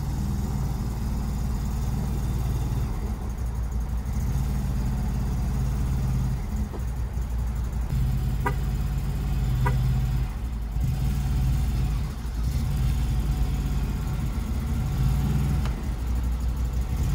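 CFMOTO UFORCE 1000 side-by-side's V-twin engine running at low throttle as the machine creeps backward off a trailer, its note swelling and dipping several times.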